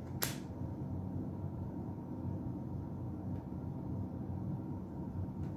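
Steady low room hum, with a tarot card set down on the table in a single sharp click just after the start and two faint ticks later.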